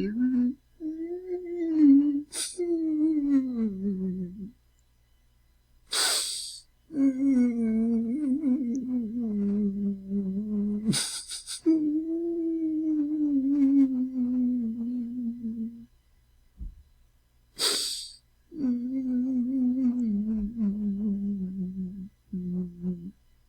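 A man moaning and crying: a series of long, low, drawn-out moans, mostly sliding down in pitch, broken by short, sharp, noisy intakes of breath about four times, with brief pauses between.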